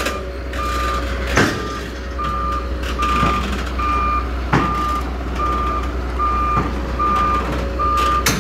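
XCMG XE215C excavator's travel alarm beeping steadily, about three beeps every two seconds, over the low steady running of its diesel engine: the alarm sounds as the machine drives its tracks to come down off the lowboy trailer. A few short knocks come in between, the loudest about one and a half seconds in.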